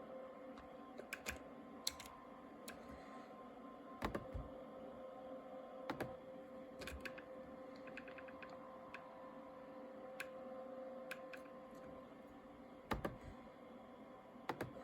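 Scattered clicks of switches and buttons being pressed on an Airbus A321 flight deck, with a quick run of small keypad-like clicks about eight seconds in, over a steady electrical hum with both engines shut down.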